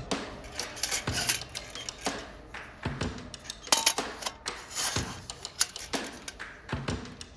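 Irregular clinks, knocks and clatter of metal camp cookware being handled.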